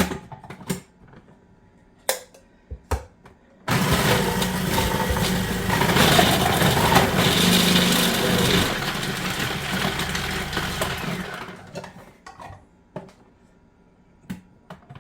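A few light knocks, then about four seconds in a food processor with a grater disc starts up and runs for about seven seconds shredding carrots, before winding down.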